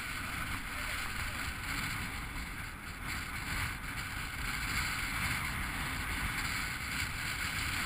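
Steady wind noise on the microphone over small waves washing across a shallow rocky reef.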